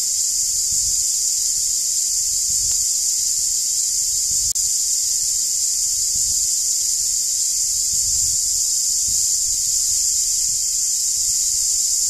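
Cicadas singing: a loud, steady, high-pitched buzz that breaks off for an instant about four and a half seconds in.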